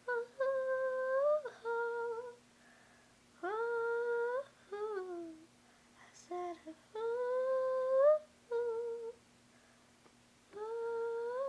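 A girl humming a melody without words, in short phrases of a second or two with pauses of about a second between them.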